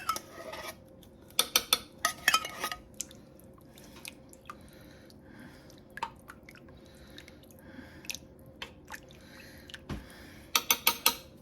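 A kitchen utensil clinking and scraping against cookware in quick rattling runs about one and a half and two and a half seconds in and again near the end, with faint scattered taps between, as soup ingredients are scooped and stirred.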